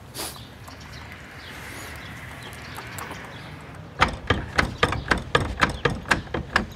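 Ratchet of a rigging-tensioning tool clicking as a sailboat's shrouds are tightened: after a few quiet seconds, a run of sharp metallic clicks at about four a second.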